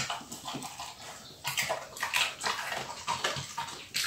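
Staffordshire bull terrier crunching and chewing chunks of raw cucumber from a metal bowl, in irregular crunches about three a second.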